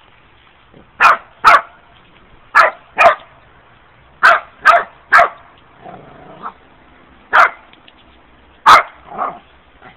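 Dog barking: about ten sharp barks in quick pairs and triples with short pauses between the groups.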